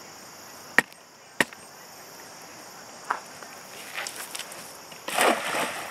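Cast net being thrown: two sharp clacks of its lead weights as it is gathered, then the net hitting the pond's surface with a short splash about five seconds in. Insects drone steadily in the background.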